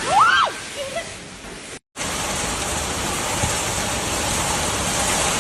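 Heavy rain pouring in a steady, even hiss after an abrupt cut about two seconds in. Before the cut there is rushing storm noise with a brief rising-and-falling cry near the start.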